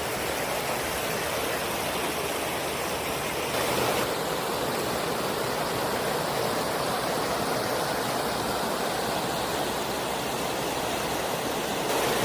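Floodwater flowing fast across flooded rice paddies, a steady rush of water.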